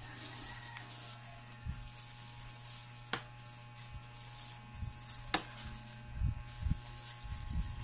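Tape being pulled off a roll and wrapped around a wire rod's handle while a plastic bag crinkles, in recurring crackly bursts. There is a sharp click about three seconds in and another about five seconds in, with low handling bumps near the end.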